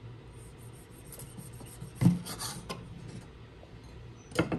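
Kitchen food-prep handling sounds with tomatoes: soft rubbing and scraping, one sharp knock on a hard surface about two seconds in, and two more knocks near the end.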